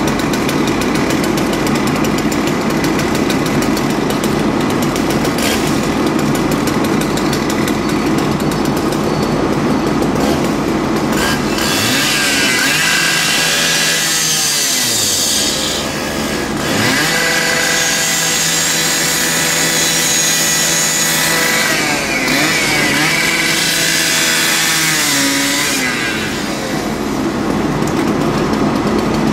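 A steady engine drone, then from about twelve seconds in a gasoline power saw revving up and down with a high, harsh whine, dropping off briefly twice before climbing again. It settles back to the drone near the end.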